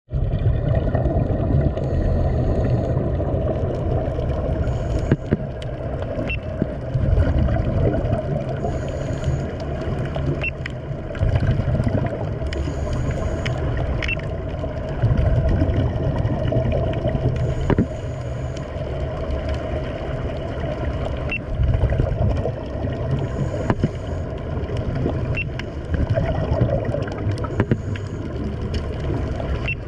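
Underwater ambience: a steady low rush of water and air bubbles, with faint clicks scattered through.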